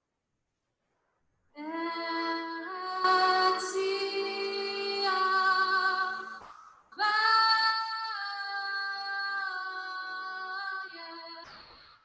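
A woman singing a slow Jewish prayer melody with a cello, in two long phrases of held notes separated by a short break, starting about a second and a half in.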